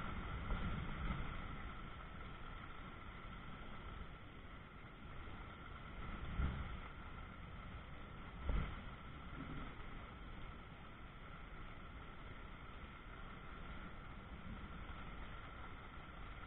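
Heavy thunderstorm rain falling steadily, with two brief low thumps about six and a half and eight and a half seconds in.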